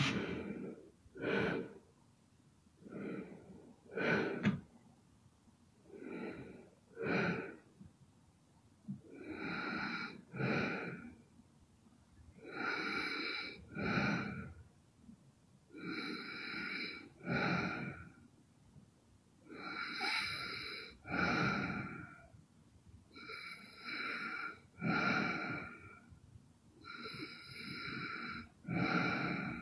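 A sleeping young woman snoring hard: each breath comes as a longer snore followed closely by a shorter one, repeating about every four seconds, after a few quieter, uneven breaths at the start.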